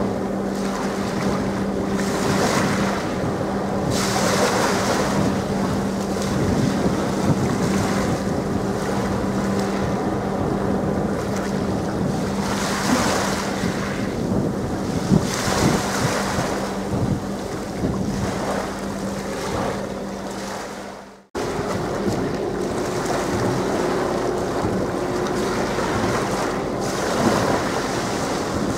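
Wind buffeting the microphone over churning water, with a steady low engine hum from the ship and its tugs underneath. The sound drops out briefly about three-quarters of the way through, then the wind and water return with the hum fainter.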